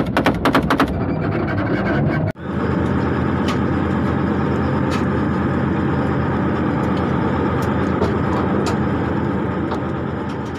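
A rapid burst of automatic gunfire, roughly ten shots a second, fills the first second. After a sudden cut about two seconds in, steady vehicle engine and road noise with a few faint clicks takes over and fades out near the end.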